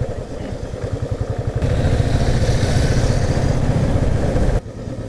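Royal Enfield 350 single-cylinder motorcycle engine running under way, a steady train of low exhaust beats. It gets louder from about one and a half seconds in, with a hiss over it, then drops sharply about four and a half seconds in.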